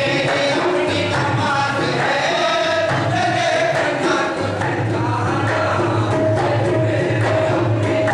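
Qawwali music: singing voices with a rhythmic tabla accompaniment.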